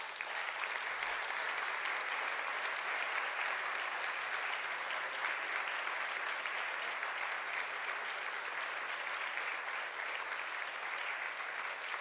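A large seated audience applauding, a dense, steady round of clapping that keeps up throughout.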